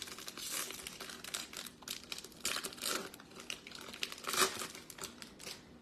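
Foil wrapper of a 2022 Topps Stadium Club Chrome card pack crinkling as hands work it open, in irregular crackles with a few louder bursts.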